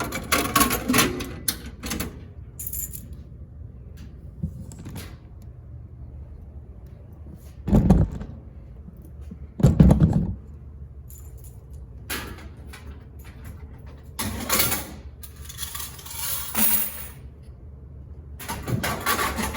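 Clattering and knocking of things being handled, with two heavier thumps about eight and ten seconds in, and a spell of rustling or scraping later on.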